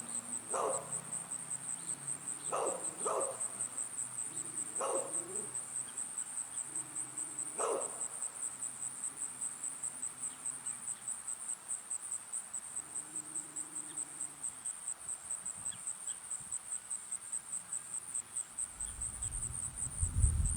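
Crickets chirping: a steady, rapidly pulsing high trill. A few short faint sounds come in the first eight seconds, and a low rumble rises near the end.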